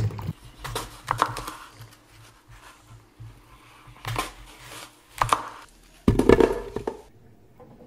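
Kitchen knife cutting through whole apples and striking a wooden cutting board: a few separate sharp crunching cuts. About six seconds in there is a louder, longer clatter.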